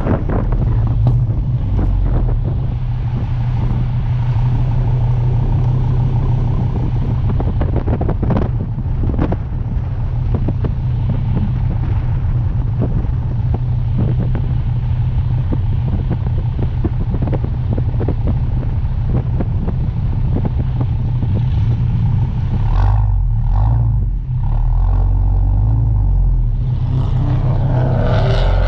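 A car's engine drones steadily at cruising speed, with road and wind noise on a camera mounted outside on the car. Near the end the engine drops to a deeper, uneven rumble as the car slows.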